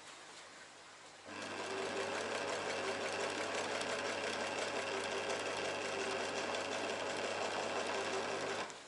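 Singer sewing machine stitching along the edge of curtain fabric: it starts about a second in, runs steadily at an even speed, and stops shortly before the end.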